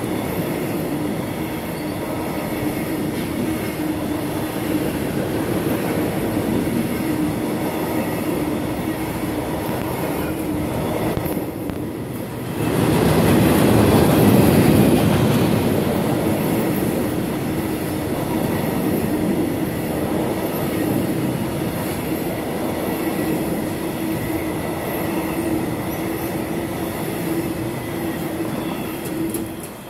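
Intermodal freight train's wagons, loaded with semi-trailers and containers, rolling past: a steady rumble of wheels on rail with a thin steady tone through it. It grows louder for a few seconds about halfway and drops off suddenly near the end as the last wagon passes.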